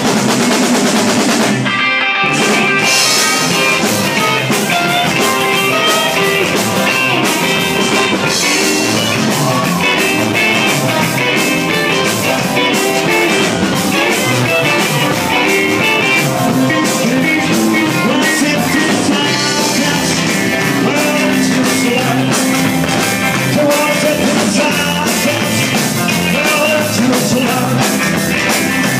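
Rock and roll band playing live, with electric guitar and drum kit driving a fast shuffle and a brief stop about two seconds in.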